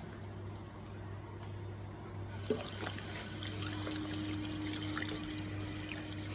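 Tap water starts running into a sink about two seconds in, with small splashes as hands are rinsed under it.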